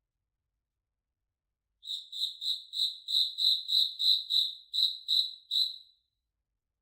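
A cricket chirping: after a pause, a run of about a dozen short, high chirps at an even rate of about three a second, stopping near the end.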